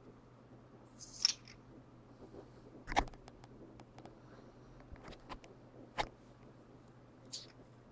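Sparse clicks and short scrapes from a Lego Technic 8459 wheel loader as its steel forks are tilted, with a sharp knock about three seconds in, another click at six seconds, and brief high scrapes near the start and near the end.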